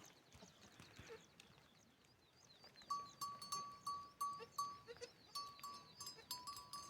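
A small metal livestock bell ringing in a steady rhythm of about three strikes a second, starting about three seconds in.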